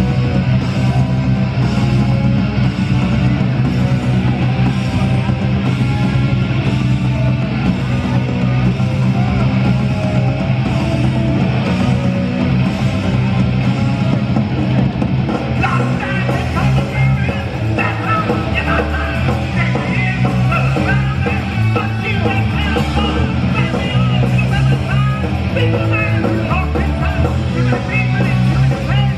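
Punk rock band playing live, with loud distorted electric guitars, bass and drums. A shouted vocal comes in about halfway.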